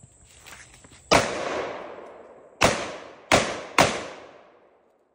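Four shots from a 7.62×39 AR pistol: a single shot about a second in, then three more in quicker succession. Each shot trails off in a decaying echo.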